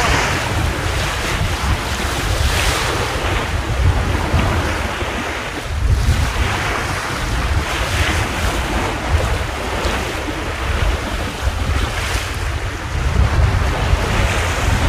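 Strong wind buffeting the microphone over the rush and splash of water along a small sailboat's hull as it sails through rough seas, with surges of wash every couple of seconds.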